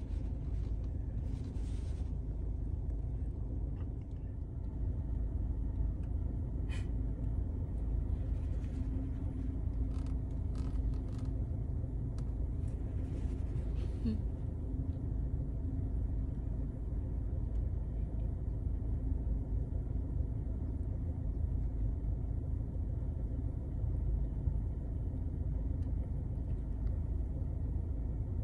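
Steady low rumble of a car engine idling, heard from inside the cabin, with a faint steady hum and a few faint clicks.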